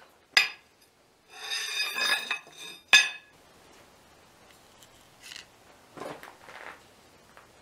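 A bar of 5160 spring steel set down on an anvil: a sharp clank, then about a second and a half of ringing, scraping metal as it slides into place, and another loud clank about three seconds in. Quieter handling sounds follow near the end.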